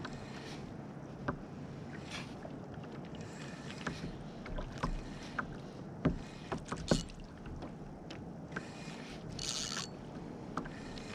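Sea water lapping and slapping against a kayak hull, with scattered sharp knocks and clicks, loudest about six to seven seconds in, and a brief hiss a little over nine seconds in.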